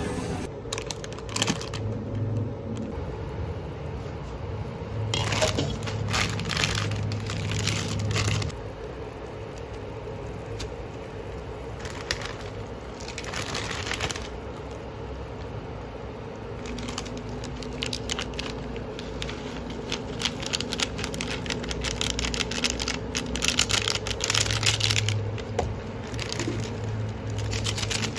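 Instant-noodle cooking: plastic packets crinkling and being torn open in several spells, with crackling and bubbling from a pot of noodles in boiling water and a steady low hum underneath.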